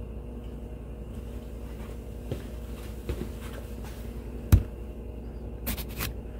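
A steady low hum with a few scattered knocks and clicks; the loudest knock comes about four and a half seconds in, and a quick cluster follows near the end.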